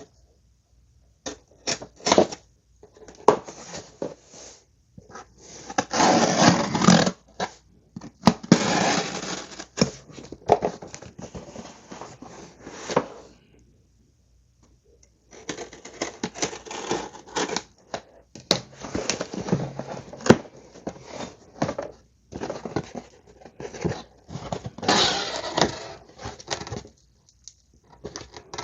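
A package being opened by hand: packaging tearing, crinkling and scraping in irregular bursts, with a pause of about two seconds about halfway through.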